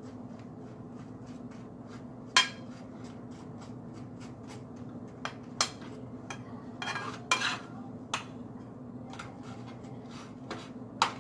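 A spoon clinking and scraping against a skillet as butter is pushed around cooking waffles: scattered sharp clinks, the loudest about two seconds in and near the end, with a short scrape around the middle, over a steady low hum.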